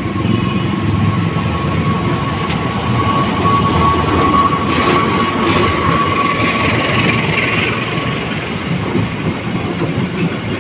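A train running close by: continuous rumble and clatter of its wheels on the rails. A thin, steady high-pitched whine rides over it and fades out about eight seconds in.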